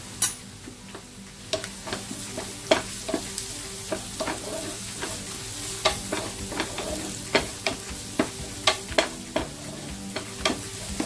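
Onion and spice mixture frying in oil in a pan, sizzling steadily while a spatula stirs it, knocking and scraping against the pan in many sharp, irregular clicks. The turmeric powder just added is being sautéd until its raw smell cooks off.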